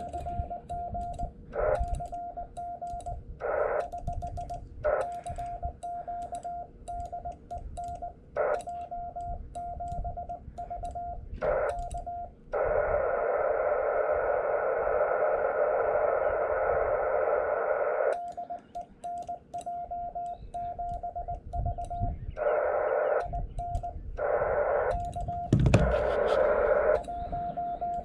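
Morse code from a ham transceiver's speaker: a steady tone of about 700 Hz keyed in dots and dashes, with sharp clicks of the paddle. The keying is broken by short bursts of receiver hiss from the 18 MHz band, with one longer stretch of about five seconds near the middle.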